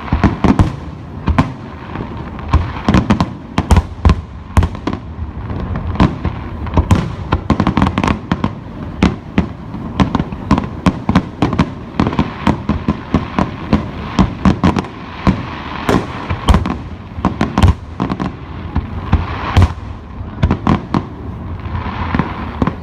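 Aerial fireworks display: a dense, irregular barrage of shell bursts, several bangs a second, over constant crackling.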